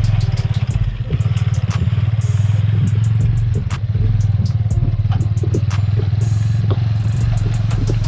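Motorcycle engine running steadily while riding, with scattered sharp clicks and rattles over it.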